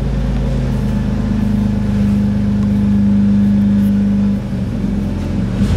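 Power-feed motor of an Exacto 942B vertical milling machine running with a steady electric hum as it drives the knee up and down; the hum grows louder toward the middle and drops off about four seconds in.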